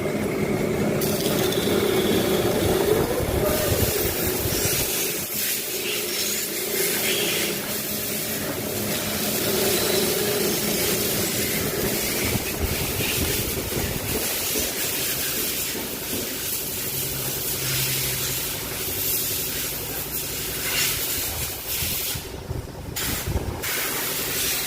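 Bench drill press running with an engine valve chucked in it while the valve is cleaned: a steady motor hum under a continuous hissing, scraping noise that shifts in strength.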